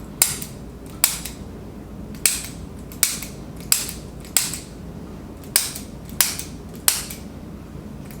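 Hand-held spring-loaded chiropractic adjusting instrument firing, a sharp mechanical click about ten times, roughly two-thirds of a second apart in short runs.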